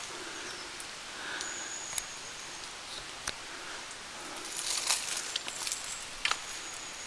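Footsteps through dry leaf litter and undergrowth, with twigs snapping and branches brushing past; a denser stretch of crackling and rustling about two-thirds of the way through.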